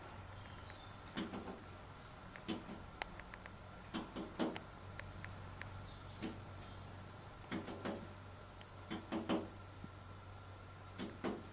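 Long-tailed tit tapping at the window glass in short bursts of several quick knocks, with runs of high, thin, down-slurred call notes, several in quick succession, twice.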